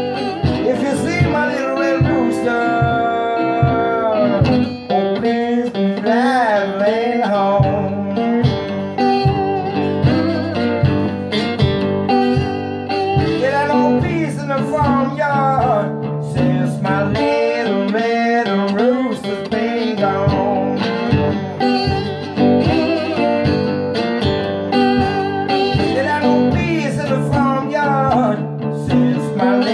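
Blues slide guitar played live on a resonator-bodied electric guitar through a small combo amp. Notes glide up and down over steady picked low notes with an even pulse.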